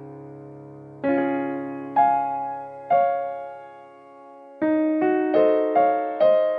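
Background piano music: gentle struck notes and chords that each ring and fade, with a quicker run of notes about two-thirds of the way through.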